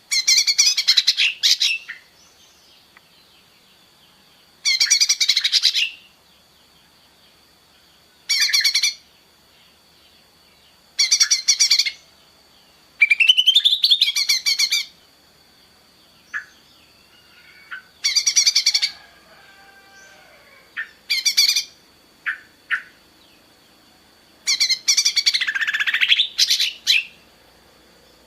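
A bird calling in repeated harsh, rapid chattering bursts, each about a second long and coming every few seconds. A faint steady high-pitched whine runs underneath.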